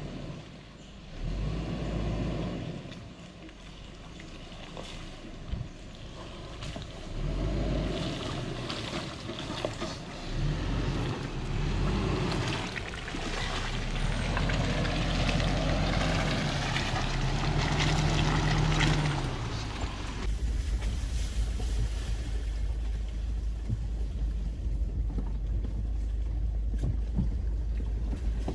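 A vehicle driving on a rough dirt road: engine and road noise rising and falling. About two-thirds of the way through it changes abruptly to a steady low rumble, like wind buffeting the microphone.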